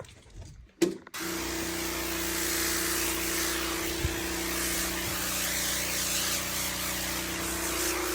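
A motor-driven machine cuts in abruptly about a second in and runs steadily, a strong even hiss over a steady hum.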